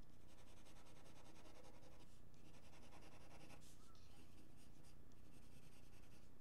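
Pencil scratching on drawing paper: a continuous run of shading strokes, over a faint steady low hum.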